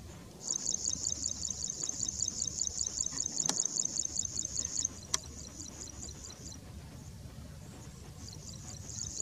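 Insect trilling: a high, rapid, evenly pulsed trill that starts about half a second in, weakens about five seconds in, breaks off, and starts again near the end. Two sharp clicks come in the middle, over a low rumble.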